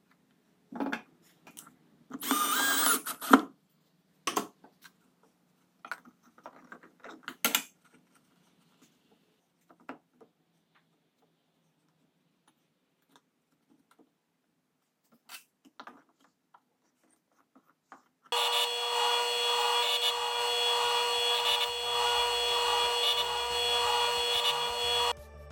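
Clicks, knocks and a brief scrape as a 10-inch circular saw blade is handled and set into a wooden sharpening jig on a table saw. About 18 seconds in, the table saw starts abruptly and runs steadily for about seven seconds, driving the disc used to sharpen the blade's teeth, then cuts off.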